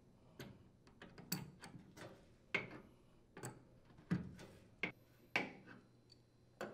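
Adjustable wrench clicking and knocking against a dryer's plastic leveling leg and sheet-metal cabinet as the leg is wrenched into its hole: about a dozen light, irregular clicks.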